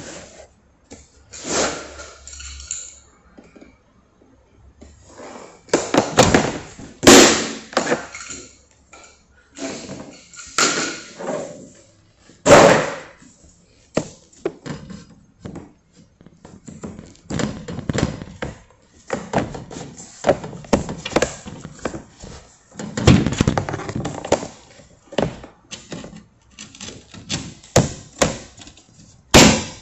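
Irregular knocks and thuds of plank flooring being laid, as planks are set down, pressed and tapped into place on the floor, coming in clusters every few seconds.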